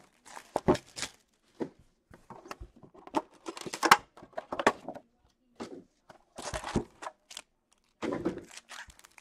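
A shrink-wrapped 2019-20 Series 1 hockey card box being torn open and handled, with crinkling plastic and cardboard flaps, then its foil packs pulled out and set down on the table in a few soft thuds. The handling comes in short irregular bursts.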